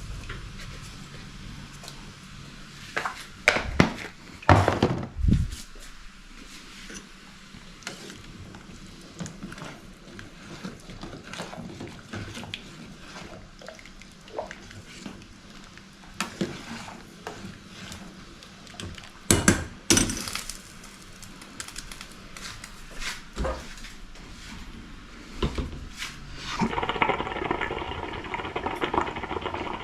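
Kitchen clatter: dishes, pots and utensils being knocked and set down, with several loud knocks. Near the end a steady humming, hissing sound starts and keeps going.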